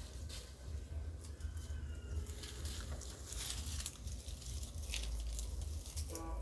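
Dry leaf litter rustling and crackling in short irregular bursts as macaques move and handle it, over a steady low rumble. A brief pitched call sounds near the end.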